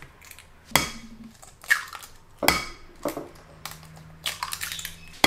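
Eggs being cracked and broken into a glass bowl of shredded vegetables: a series of sharp taps and cracks, roughly a second apart.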